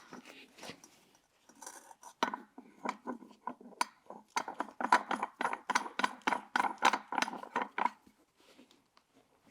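Metal parts of a motorcycle tire changer clinking and clicking as a wheel is fitted onto its single-sided BMW hub adapter: a few separate knocks, then a quick, even run of metallic clicks at about five a second, stopping about two seconds before the end.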